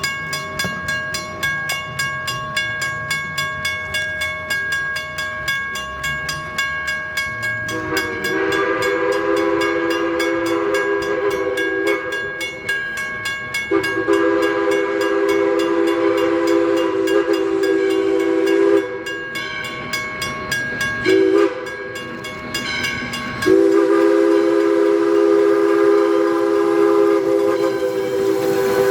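ALCO 2-8-2 Mikado steam locomotive working with a rhythmic exhaust beat, then its chime steam whistle sounding the grade-crossing signal: two long blasts, a short one, and a final long one.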